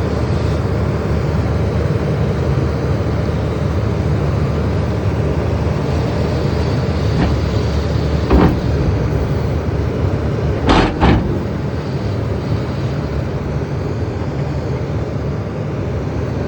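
Heavy diesel machinery engine running steadily under load, with a sharp knock about eight seconds in and two quick knocks a couple of seconds later.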